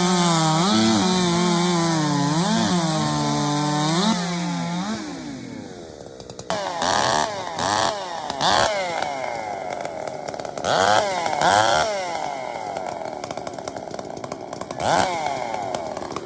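A 5 cubic inch class two-stroke racing chainsaw runs flat out through a cut, its pitch sagging and recovering under load for about five seconds before dying away. After that, chainsaw engines rev in short sharp bursts several times.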